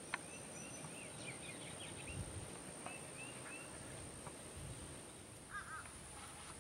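Faint bird calls in open country: two runs of short, arching chirps, then a pair of lower notes near the end. A sharp click comes right at the start.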